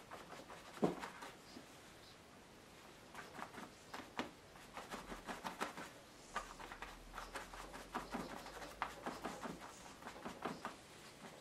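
Painting tools dabbing and tapping at acrylic paint: quick, irregular soft taps in clusters, with one sharper knock about a second in.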